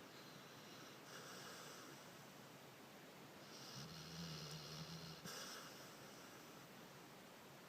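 Dog snoring softly in its sleep: a faint breathy hiss about a second in, then one longer snore with a low drone from about three and a half to five seconds, followed by a short breathy exhale.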